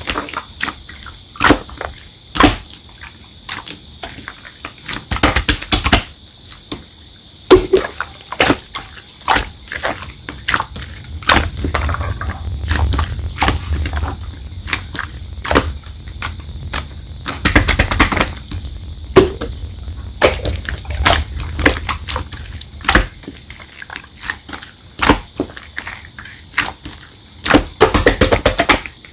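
Clear slime being squished and pressed by hand, making many irregular sharp clicks and pops, some in quick clusters.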